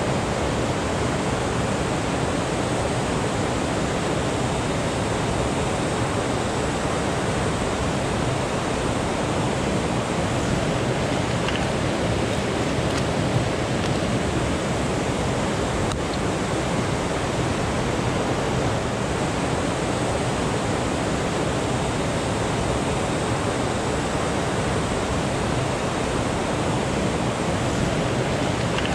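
Steady rush of a fast mountain river running over rocks in whitewater rapids, with a single faint click near the middle.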